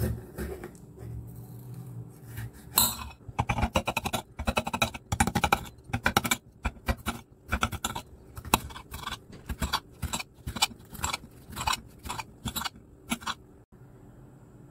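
Kitchen knife cutting a red bell pepper on a glass cutting board: a quiet scrape of the blade at first, then a long run of quick, irregular sharp clicks as the blade hits the glass with each slice and chop.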